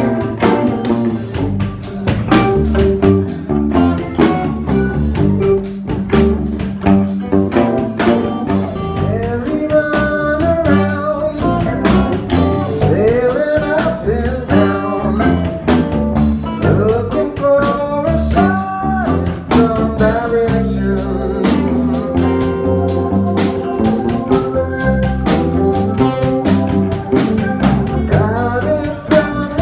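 Live band playing: semi-hollow electric guitar, electric bass, drum kit and keyboard together in a continuous jam.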